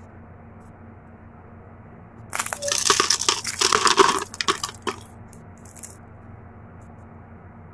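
Crisp wrapper of a fried lumpia (spring roll) crackling and crunching as it is broken open by hand. The crunching starts about two seconds in and lasts about two and a half seconds, with a few faint crackles after it, over a steady low hum.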